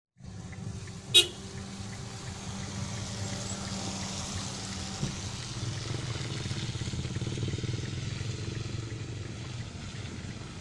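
A vehicle engine runs with a steady low hum. A sharp, loud click comes about a second in and a lighter knock about five seconds in.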